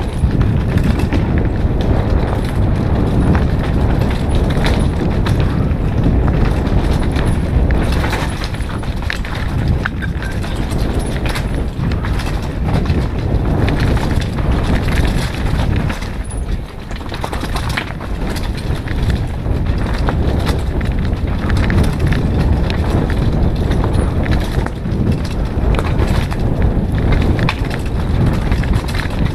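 Mountain bike riding fast down a rough, stony dirt trail: tyres rolling over gravel and rocks, with a constant stream of rattles and knocks from the bike, under wind buffeting the camera microphone.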